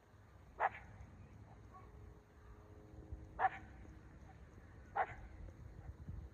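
A dog barking three times, single short barks spaced a second and a half to three seconds apart.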